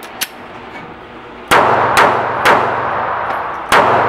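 Taurus PT738 TCP .380 ACP pistol firing four shots: three about half a second apart, then a fourth a little over a second later. Each shot is sharp and echoes in an indoor range.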